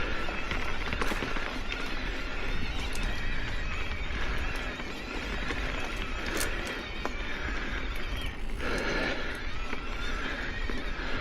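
Ibis Oso e-mountain bike being ridden over rough trail: steady tyre and drivetrain noise with a wavering whine, broken by scattered clicks and rattles from the bike.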